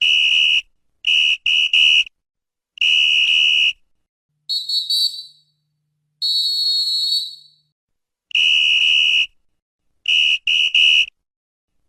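Referee's whistle blown in a series of sharp, high-pitched blasts: a single blast, three quick short ones, another single, then two blasts at a higher pitch in the middle, a longer blast, and three quick short blasts near the end.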